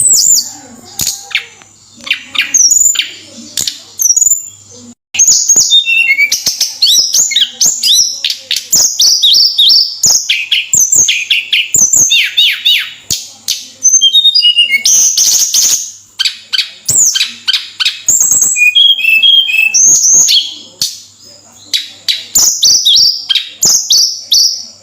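Tledekan songbird singing in full voice: a rapid, busy run of high whistled notes, trills and sharp chirps, with only short breaks.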